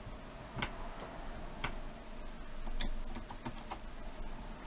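Screwdriver turning a threaded screw into the metal chassis of a VCR mechanism, giving irregular light clicks and ticks.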